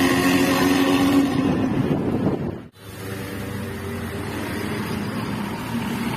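A bus's loud aftermarket exhaust with a raspy, snoring note ('cempreng ngorok'), running under throttle with its pitch rising in the first second. It drops out abruptly a little under three seconds in and comes back quieter and lower.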